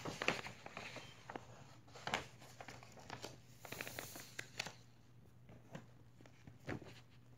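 Rolled paper poster being unrolled and handled: irregular crinkles and rustles of the paper, busier in the first few seconds and sparser near the end.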